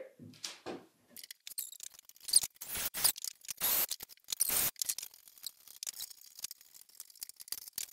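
Cordless drill tightening the worm screw of a metal hose clamp in several short bursts, followed by small clicks and taps as the clamp is handled.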